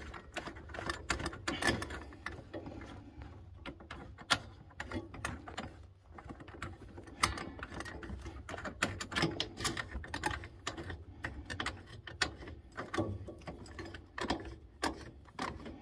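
Irregular clicks and light knocks from hands handling a brass three-port motorised valve, its wiring and the compression fittings on copper heating pipe as it is fitted and tightened.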